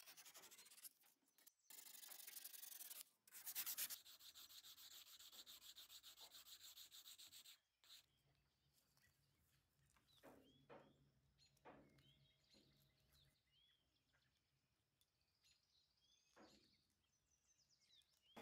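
Rapid, even sanding strokes on the small brass lighter's metal parts, stopping about eight seconds in. After that come only faint clicks and light handling.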